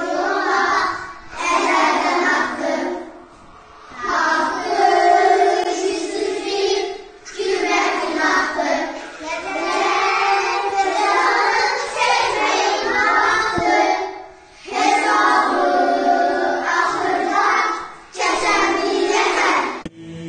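A group of young children singing together in unison, in phrases of a few seconds with short pauses between them.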